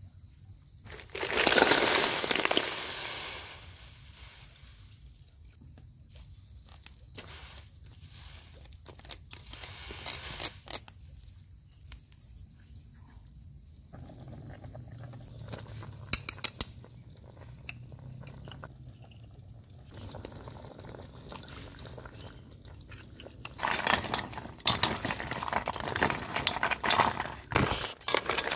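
Snail shells rattling and clattering in a wicker basket, loudest a second or two in. Near the end, snails in a wok being stirred with a spatula, shells clicking and knocking against the metal.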